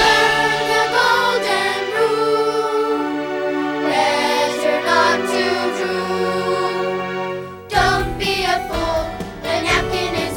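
A children's song: singing over a backing track. The music dips for a moment about eight seconds in and comes back with a clear beat.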